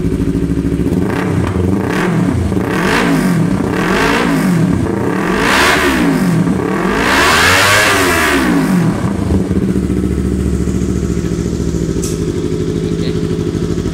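Yamaha R25's parallel-twin engine running through a Pro Liner full-system aftermarket exhaust: idling, then revved in several throttle blips that climb and fall, each higher than the last, before settling back to a steady idle about nine seconds in.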